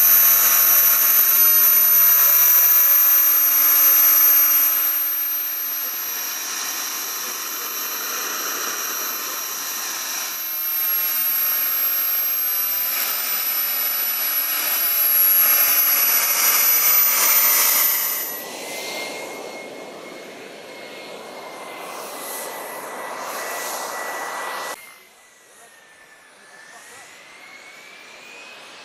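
Radio-controlled model jet's turbine engine running with a loud, steady high-pitched whine. About 18 seconds in it drops to a quieter whine whose pitch rises and then holds. It cuts off sharply near the end, leaving a fainter, slowly rising tone.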